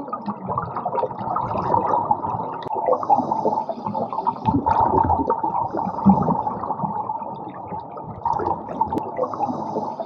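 Continuous bubbling and gurgling of air bubbles from a scuba diver's regulator, muffled as heard underwater, rising and falling unevenly.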